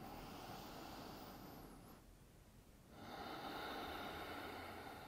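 A woman breathing slowly and audibly: a breath of about two seconds, then a louder one starting about three seconds in.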